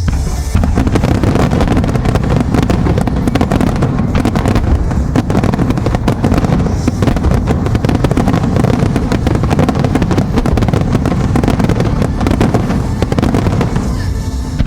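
Fireworks display: a dense, unbroken barrage of aerial shells bursting in rapid succession, many bangs and crackles overlapping.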